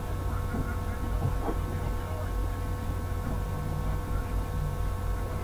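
Steady low electrical hum with faint steady tones over background noise from the recording setup.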